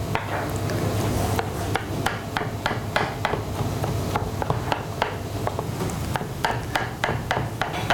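Kitchen knife chopping soft roasted aubergine on a plastic cutting board: a quick, steady run of blade strikes against the board, several each second.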